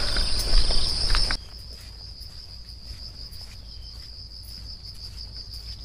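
Steady high-pitched insect trill, slightly pulsing. For about the first second and a half it lies under a louder rushing noise that cuts off suddenly.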